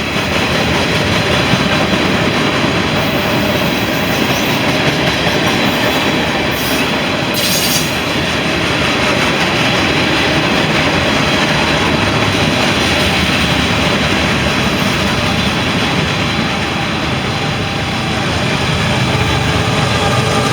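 Loaded CSX mixed freight cars rolling steadily past, wheels clattering on the rails, with a brief high-pitched noise about seven seconds in.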